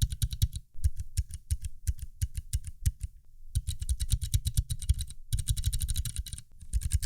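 Fast keystrokes on a few mechanical switches and keycaps in a metal 60% keyboard case, in short takes that alternate between the bare case and the case lined with cork, with brief pauses between takes.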